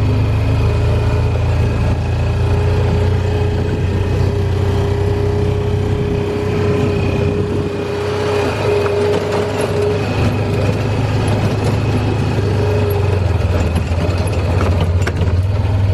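Side-by-side utility vehicle's engine running steadily while driving, a constant low drone with a higher whine above it that fades in and out.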